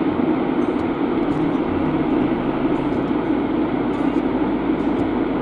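Steady engine and road noise heard from inside a car's cabin as it creeps along in slow traffic: an even low rumble and rush with no sudden events.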